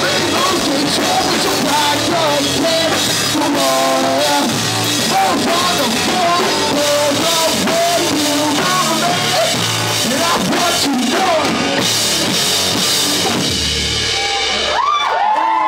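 Live rock band playing loud: drum kit, electric guitars and electric bass, with sung vocals. The song ends about 14 seconds in on a held low note, and voices start shouting and cheering right after.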